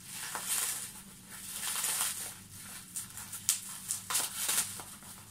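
Packing material rustling and crinkling as a gift is unwrapped by hand, with a couple of sharper crackles about three and a half and four seconds in.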